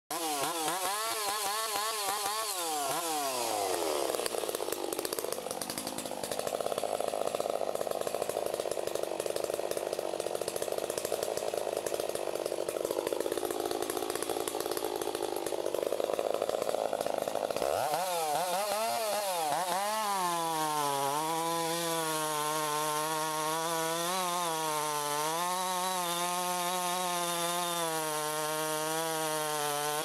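Chainsaw with a long bar cutting into the trunk of a large tree, running at high revs under load. Its engine pitch keeps rising and falling as it works through the wood, with a rougher, noisier stretch in the middle.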